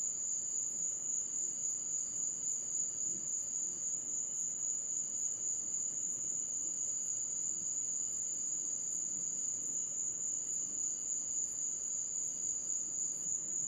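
Night insects trilling in a continuous high-pitched chorus that stays steady throughout.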